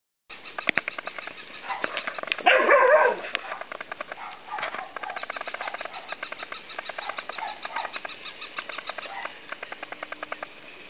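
A motorised plush toy dog clicking fast and evenly as its mechanism works, with one louder bark about two and a half seconds in.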